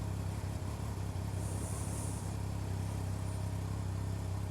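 Steady low mechanical hum, like an engine or machine idling, with a brief high hiss about a second and a half in.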